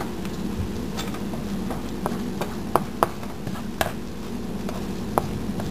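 Egg and roti frying in oil in a pan, giving a scattering of sharp pops and ticks over a steady low hum.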